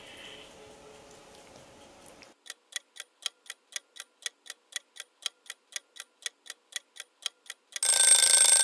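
Owl-shaped wind-up mechanical kitchen timer ticking about four times a second, starting about two seconds in. Near the end its bell rings loudly: the set baking time has run out.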